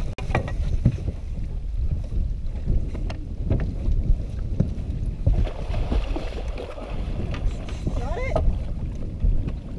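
Wind rumbling on the microphone over the noise of water around a small aluminium fishing boat, with scattered knocks. In the second half comes the splashing of a musky thrashing as it is scooped into a landing net at the boat's side.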